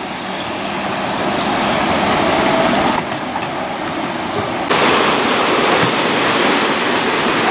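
Rushing, churning water pouring through a canal dam gate into whitewater, with a brief faint rising whine, likely from the RC jet boat's electric motor, about two seconds in. The water sound shifts abruptly twice.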